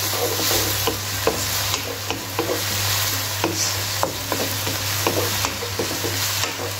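Diced red onion and garlic sizzling in oil in a non-stick wok while being stirred with a wooden spoon, the spoon knocking and scraping against the pan in many short clicks over a steady hiss.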